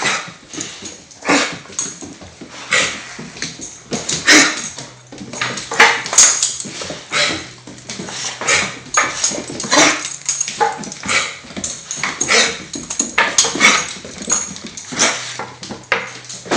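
Dog coughing in a long fit of harsh, repeated hacks, roughly one a second with uneven spacing. These are episodes that the owner suspects may be kennel cough.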